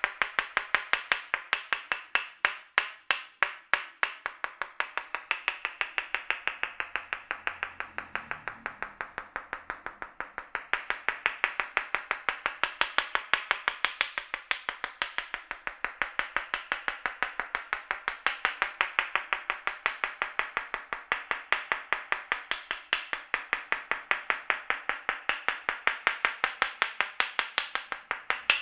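Percussive massage strikes on the head and shoulders: a fast, even run of crisp taps, about five a second, a little softer for a few seconds early on.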